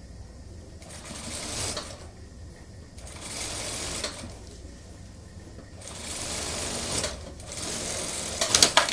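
Industrial single-needle lockstitch sewing machine stitching a suit sleeve into the armhole in four short runs of about a second each, pausing between runs while the sleeve cap is eased under the foot. A few sharp clacks from the machine come just before the end.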